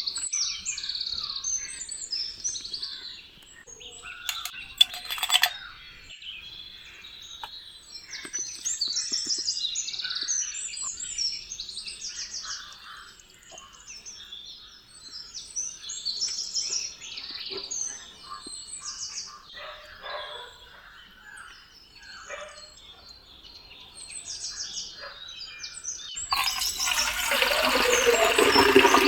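Small birds chirping and twittering on and off, with a couple of sharp knocks about four to five seconds in. Near the end a rush of running water starts suddenly and grows louder.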